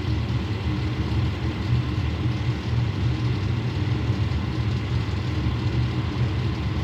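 Fire truck engine idling: a steady low rumble with no change in pitch or level.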